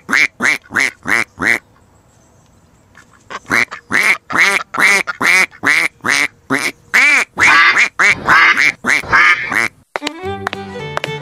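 A duck quacking in quick runs of short, nasal quacks: a run, a pause of about a second and a half, then a longer run whose later quacks are drawn out and louder. Fiddle music comes in near the end.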